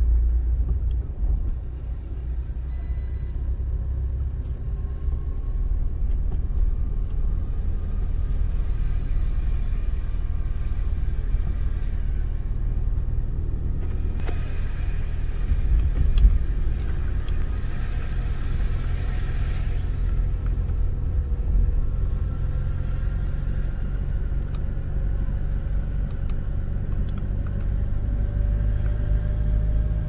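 Low, steady rumble of a car driving, engine and road noise together. A brighter hiss swells for a few seconds midway, and the engine note rises slowly near the end.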